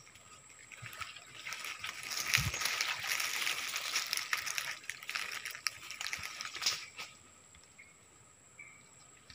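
Crackly rustling of palm fronds and leaves brushed close to the microphone, with small snapping clicks, swelling for several seconds and fading near the end.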